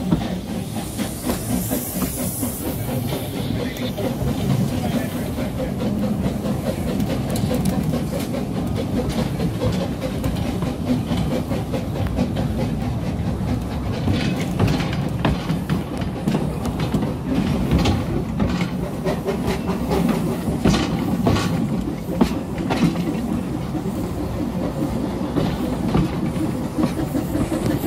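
Narrow-gauge steam train running, heard from an open carriage: a steady rumble of wheels on the rails, with a hiss of steam in the first few seconds and sharper clicks over rail joints from about halfway through.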